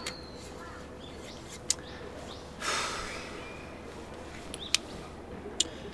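Quiet outdoor park ambience with faint bird chirps, a few sharp small clicks, and a short breathy rush of noise about two and a half seconds in.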